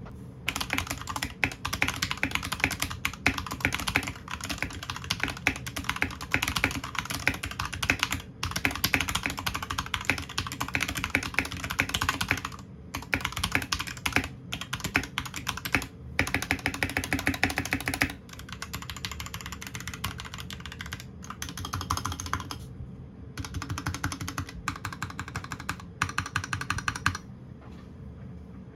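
Royal Kludge RK61 mechanical keyboard, with lubed switches and a piece of tablecloth fitted inside as dampening, typed on fast with a few short pauses. The typing stops a little before the end.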